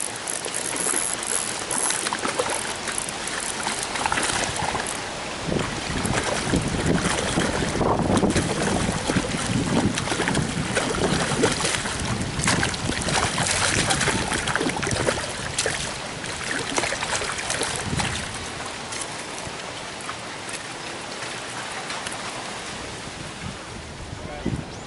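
A hooked trout thrashing and splashing at the water's surface while being played on a spinning rod, in a busy run of choppy splashes that eases off near the end.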